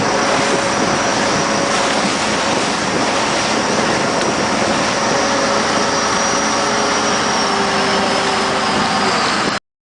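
Motorboat engine running steadily, a loud even noise with a faint high whine over it. It cuts off abruptly near the end.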